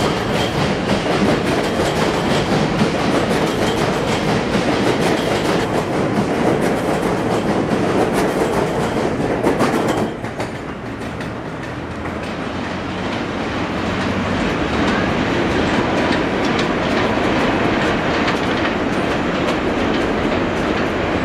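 An R160A subway train on the elevated J line running along the platform, its wheels clattering over the rail joints. About ten seconds in, as the last car clears, the clatter drops off suddenly to a quieter rumble that grows a little louder later on.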